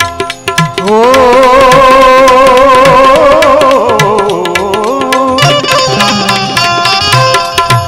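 Gujarati devotional bhajan music interlude: rapid hand-drum strokes all through, with a loud held melody note that wavers in pitch from about a second in, giving way to a higher, brighter melody line after about five seconds.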